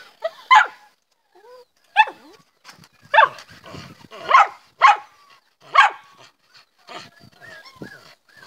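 A dog barking in short, sharp barks, about eight of them at uneven intervals.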